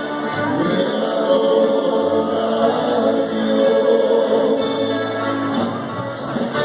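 A band playing a song, with voices singing together over the instruments.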